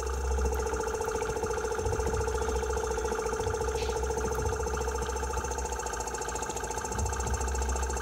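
Small electric air compressor running with a steady, even hum. It is blowing air through gasoline to make burnable vapour.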